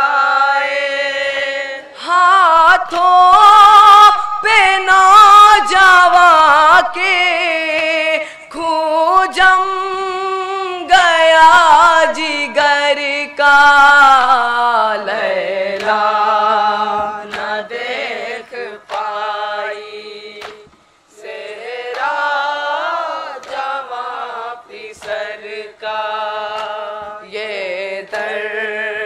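A group of young men chanting an unaccompanied nauha, a Shia mourning lament, in unison into a microphone, with a short break about two-thirds of the way through.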